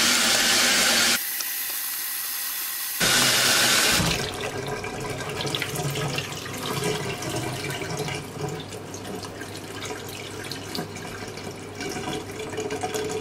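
Cold tap water running hard onto cooked soba noodles in a plastic colander over a stainless steel sink; the flow drops for a couple of seconds and stops about four seconds in. Water then drains and drips through the colander's holes, with light clicks as the noodles are stirred with chopsticks.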